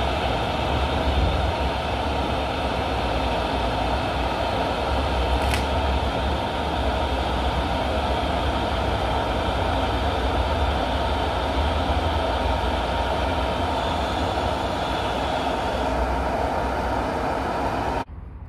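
Steady hum and hiss of DC TIG welding: the Unitor UWI 500 TP inverter welding machine running with its arc burning on a steel plate, a low rumble underneath. It cuts off suddenly near the end.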